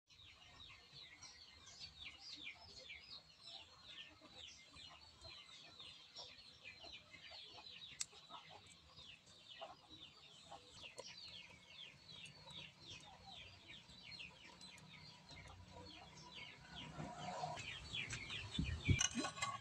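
Chicks peeping: a steady run of short, high, falling peeps, several a second. Near the end come louder knocks and a thump.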